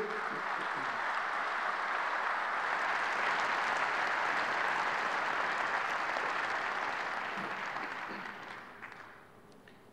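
Large theatre audience applauding steadily, the clapping dying away near the end.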